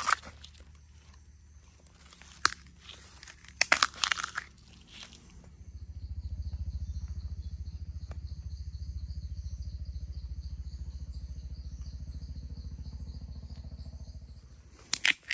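Dry bamboo leaf litter crunching and crackling in a few sharp bursts as a hand works among the shoots. After about six seconds a steady low rumble sets in, with insects trilling faintly and high above it.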